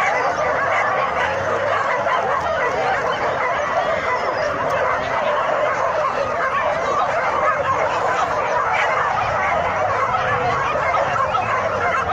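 A large pack of dogs whining and yelping all at once, a dense, steady chorus of many overlapping high-pitched cries.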